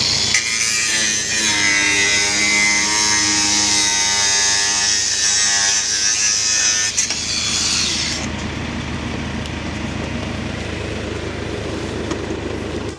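Makita angle grinder cutting steel roof clips: a loud, high hissing screech over a whining motor tone, which stops about eight seconds in. A lower, steady engine noise from the machinery carries on underneath.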